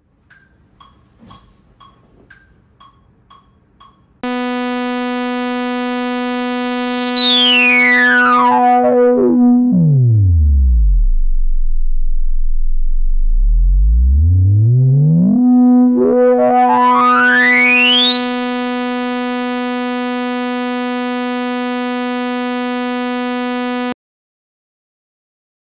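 Synthesizer holding one sawtooth note while its filter cutoff, with resonance turned all the way up, is swept down to the bottom and back up. The resonant peak slides down through the harmonics, dulls the note to a low hum, then rises again to full brightness. The note starts about four seconds in, after a few faint ticks, and cuts off near the end.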